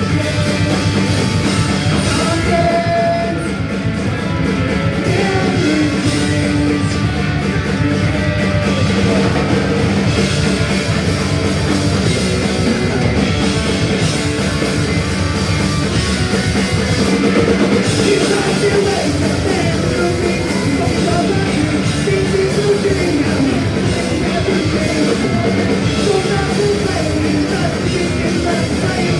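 Punk rock band playing live: distorted electric guitars, bass and drum kit, with a singer's voice over them.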